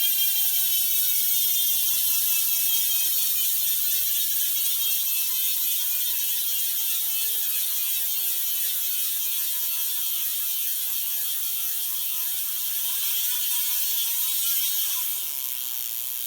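Profile Racing Elite sealed freewheel hub buzzing as the BMX wheel coasts freely, the pawl buzz sinking steadily in pitch as the wheel slows. About twelve seconds in the buzz briefly rises and falls again, then quietens near the end.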